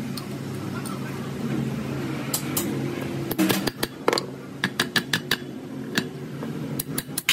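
Steel combination wrench clicking and clinking against the bolts of a truck drive shaft yoke as they are turned, a quick series of sharp metal clicks from about two seconds in. A steady low hum runs underneath.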